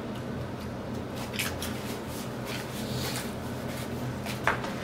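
Soda being sipped through a straw from a paper fountain cup: soft, scattered slurping and swallowing mouth sounds, with one sharper short click near the end, over a steady low hum.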